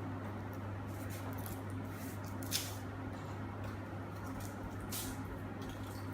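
Hands handling a Zaini chocolate surprise egg and its wrapper: a few soft crinkles and clicks, the clearest about two and a half seconds and five seconds in, over a steady low hum.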